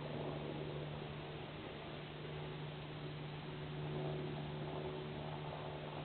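A steady low hum over an even hiss, with faint soft rustling-like patches and no distinct bird calls.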